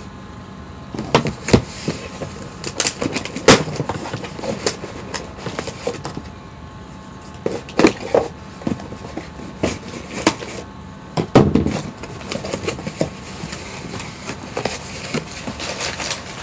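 A small cardboard shipping box being opened and unpacked by hand: cardboard and packing material scraping, crackling and rustling, with repeated sharp knocks and taps as it is handled.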